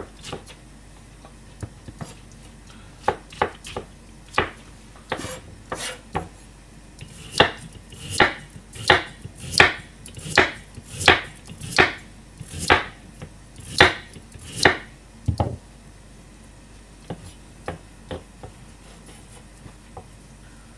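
Kitchen knife slicing shiitake mushrooms and a carrot on a plastic cutting board: a few scattered light cuts, then about a dozen firmer, evenly spaced chops roughly one every three-quarters of a second as the knife goes through the carrot, then a few soft taps.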